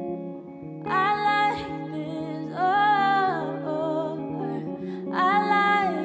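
Live music: a woman sings three short phrases over sustained guitar and keyboard notes.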